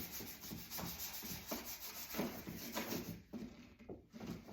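A brush scrubbing the inside of a dishwasher in quick back-and-forth strokes. The strokes ease off about three seconds in, leaving a few lighter ones.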